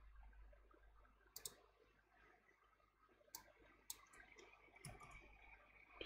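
Faint computer mouse and keyboard clicks: a handful of sharp, separate clicks, most of them bunched together a little past the middle, over quiet room tone.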